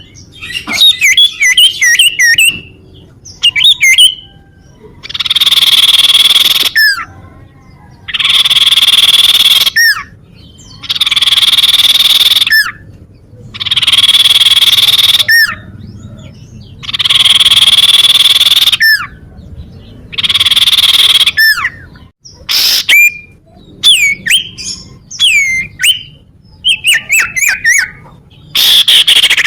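Common iora (cipoh) calling: rapid sliding whistled notes, then a series of long, harsh, rasping phrases of about two seconds each, repeated roughly every three seconds, before the quick whistles return near the end.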